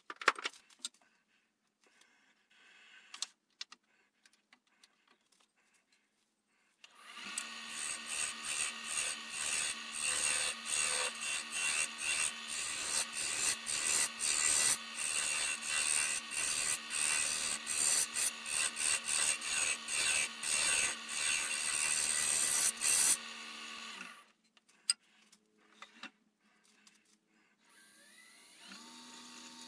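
Wood lathe turning a black walnut blank with a tool cutting the spinning wood, in a steady pulsing rhythm, starting about seven seconds in and stopping about two-thirds of the way through. A few scattered clicks come before and after.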